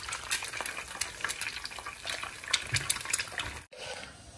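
Egg frying in oil in a pan, sizzling with many small crackles and pops; the sizzle cuts off abruptly near the end.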